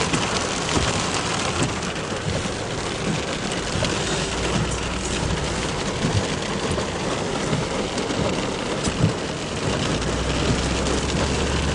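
Heavy rain pouring down steadily, with a low hum underneath that comes and goes twice.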